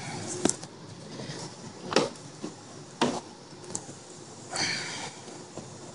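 Sharp plastic clicks and knocks, four in all, as a BMW 335i kidney grille is pushed and worked by hand into its bumper opening, with a brief scraping rush about four and a half seconds in. The grille's clips are stiff and need force to seat.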